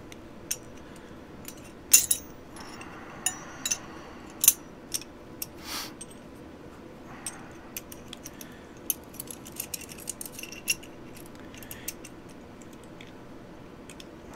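Steel parts of a Mosin-Nagant rifle bolt clicking and clinking against each other as they are handled and fitted together: irregular sharp metallic clicks, the loudest about two seconds and four and a half seconds in.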